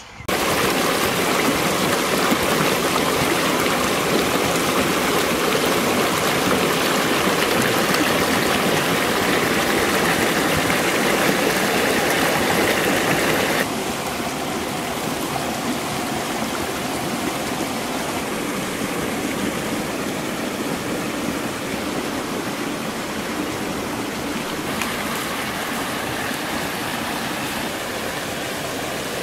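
A stream rushing steadily. The noise drops to a quieter, even level about halfway through.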